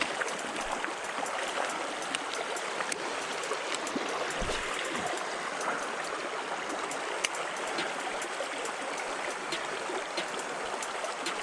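River water running over rocks in a steady rushing hiss, with scattered small ticks over it.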